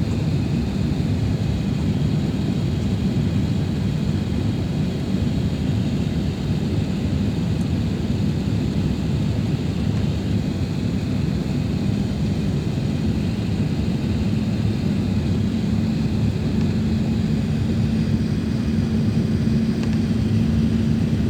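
Steady roar of an airliner's jet engines and airflow, heard inside the passenger cabin during the climb after takeoff. A steady engine hum grows stronger over the last several seconds.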